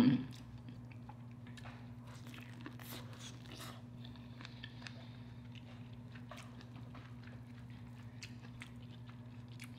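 Close-miked eating of corn on the cob: faint, scattered crunchy bites and wet chewing clicks, over a steady low hum.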